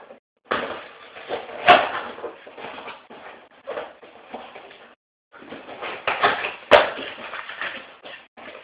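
Cardboard shipping box being handled and torn open: rustling and scraping of cardboard flaps, with two sharp snaps, one a little under two seconds in and another about five seconds later.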